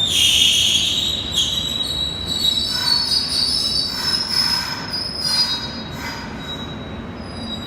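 Train wheels squealing against the rails: several high, steady screeching tones that start suddenly, shift in pitch and fade toward the end, over the low rumble of the moving train.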